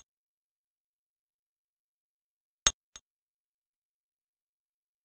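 A sharp click about two and a half seconds in, followed a third of a second later by a softer click; a faint click right at the start. Silence otherwise.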